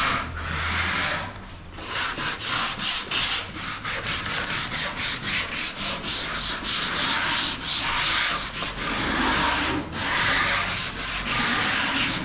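Sandpaper rubbing back and forth over wooden cabinet doors in quick, regular strokes, a few a second, smoothing them ahead of lacquer painting.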